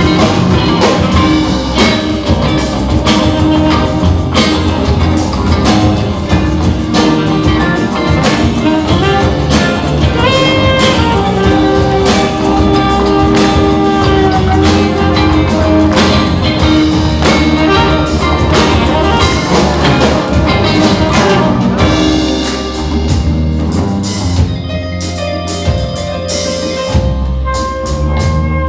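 Live band playing with drum kit and guitars, with held notes sounding over the beat. The music thins out and gets a little softer about 22 seconds in.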